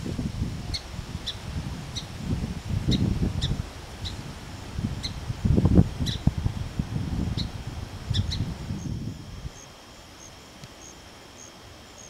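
Song sparrow giving short, sharp chip notes, about a dozen at irregular intervals, over a low rumble of wind on the microphone. About nine seconds in the rumble and chips stop, leaving only a faint steady high hum with soft regular ticks.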